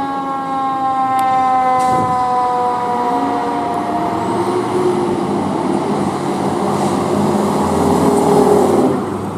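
Fire apparatus siren on a passing heavy rescue truck. One siren tone slides slowly down in pitch over the first few seconds, then a lower siren wails, rising and falling, over the truck's engine.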